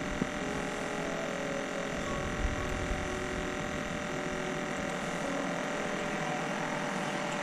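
Steady hum made of several constant tones held at an even level, over a faint hiss.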